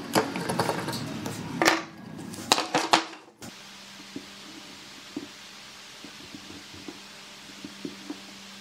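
A steel hand chisel paring and scraping wood from the bottom of a notch in a pine board, with sharp clicks and knocks as it strikes the wood. About three and a half seconds in, the sound cuts off abruptly to a quiet, steady low hum with a few faint light taps.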